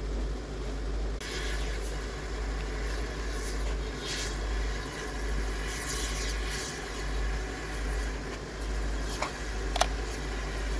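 Steam locomotive letting off steam, hissing in short bursts over a steady low rumble, with one sharp click near the end.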